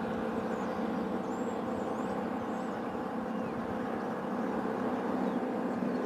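Motorboat engine running at speed, a steady even hum, with a few faint high chirps above it.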